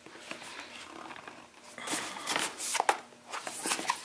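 A small white cardboard box being handled and opened by hand: cardboard rubbing and sliding against cardboard in short scrapes, with a few light taps and clicks near the end.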